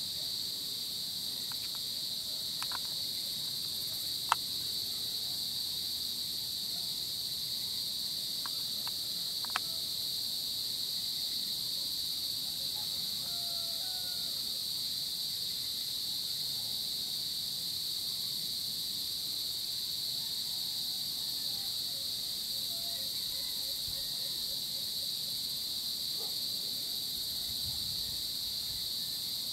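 Dusk insect chorus: a steady, unbroken high-pitched shrilling of many insects, with several layers at different pitches. Two sharp clicks about four and nine seconds in, and a few faint short chirps near the middle.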